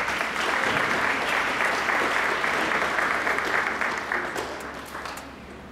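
Audience applauding, dense and even at first, then dying away about four seconds in to a few scattered last claps.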